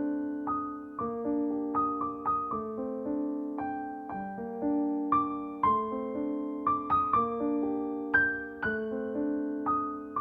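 Background piano music: a slow, gentle melody of single notes and chords, each struck and left to ring.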